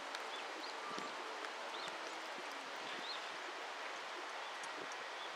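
Steady outdoor ambience like wind through trees, an even hiss, with a few short high chirps scattered through it.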